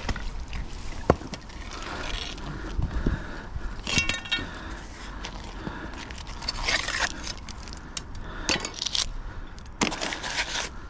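Scattered metal clanks and scrapes from scrap pulled up by magnet fishing being handled, with a sharp knock about a second in and a short ringing clink about four seconds in.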